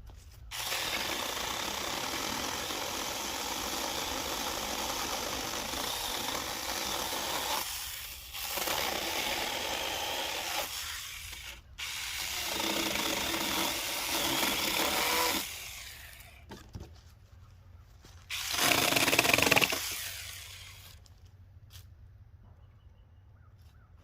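Saker mini battery-powered handheld chainsaw with a 4-inch bar, cutting wood in several runs a few seconds long with short breaks between them. A short, loudest run comes near the end, and then the saw stops.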